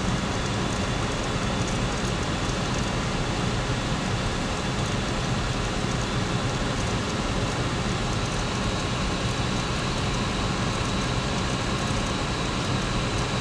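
Steady aircraft cabin noise: engine drone with a low hum under a wide rushing hiss of airflow.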